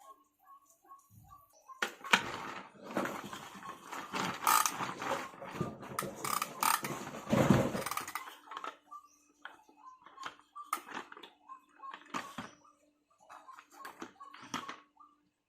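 Plastic toy vehicles being handled, with a few seconds of dense clattering and rattling followed by scattered knocks and clicks. A faint short chirp repeats evenly, a few times a second, underneath.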